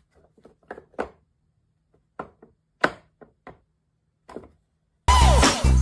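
A handful of short, irregular knocks or taps with gaps between them, then music with a steady beat starts loudly about five seconds in.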